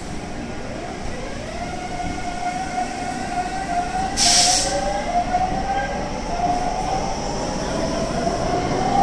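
Taipei Metro C301 train pulling away from the platform, its electric traction motors whining in several tones that climb in pitch in steps as it gathers speed. There is a short hiss about four seconds in.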